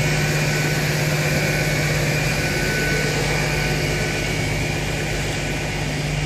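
GWR Class 802 bi-mode train standing at the platform with its underfloor diesel engines idling: a steady hum with a faint higher whine.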